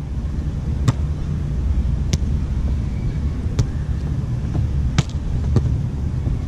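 Beach volleyball rally: the ball struck five times by players' hands and forearms, sharp slaps a second or so apart, the last two close together. A steady low rumble runs underneath.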